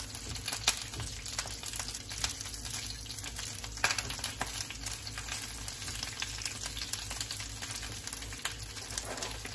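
Bok choy sizzling as it pan-sears in hot oil, a steady frying hiss with frequent crackles and pops, one louder pop about four seconds in. The spitting comes from water left on the washed greens hitting the oil.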